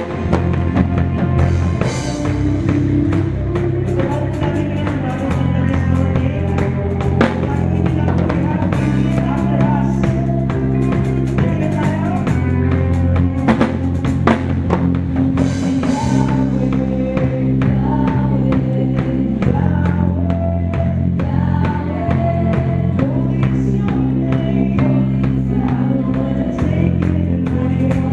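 Live band music: a drum kit played steadily under sustained bass notes, guitars and singing.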